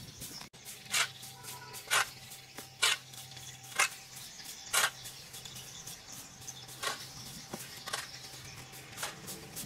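Short brushing or scraping strokes, about one a second with a pause of about two seconds midway, over a faint steady low hum.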